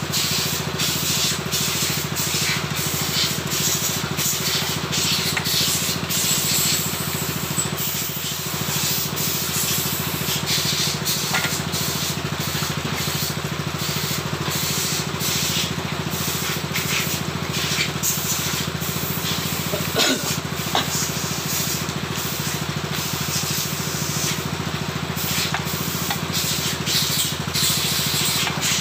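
A machine running steadily with a low, even hum throughout, under frequent light clicks and rubbing of metal parts as a motorcycle rear wheel and brake caliper bracket are handled.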